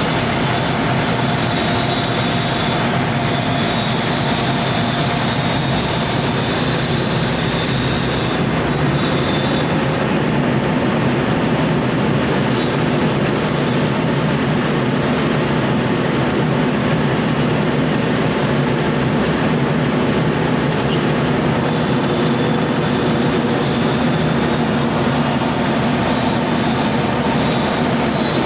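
Komatsu PC200 hydraulic excavator working, its diesel engine running steadily under load with a high hydraulic whine that fades about eight seconds in and returns near the end.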